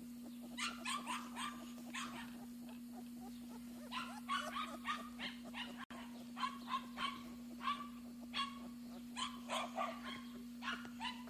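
Young puppies crying: short, high-pitched yelps and whimpers in quick runs of several at a time, which the owner puts down to their probably missing their mother.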